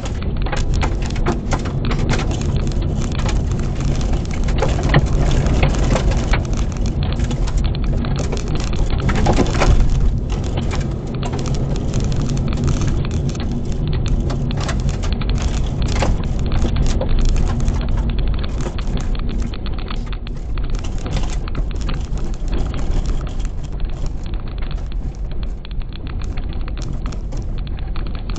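2012 Mazda 3 driven hard over a loose gravel rallycross course, heard from inside the cabin: the engine runs under load, the tyres crunch on the gravel, and stones patter constantly against the underbody, swelling louder about five and ten seconds in.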